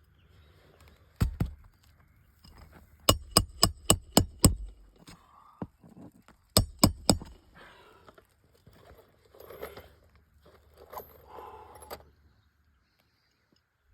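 Sharp metal strikes driving new roofing nails into asphalt shingles: a pair, then a quick run of about six, then three more. Quieter scraping and rustling of the shingles follows.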